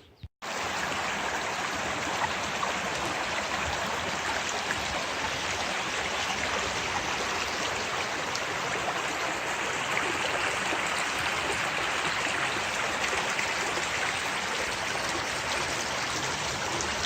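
Steady rush of a flowing stream, an even noise without changes, starting just after a brief cut-out at the very beginning.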